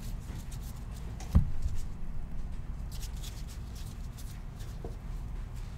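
Trading cards being handled and slid through by hand: faint rustles and ticks over a steady low hum, with one knock about a second and a half in.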